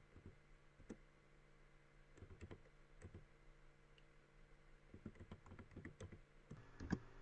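Faint typing on a computer keyboard: irregular bursts of key clicks, with one louder keystroke near the end.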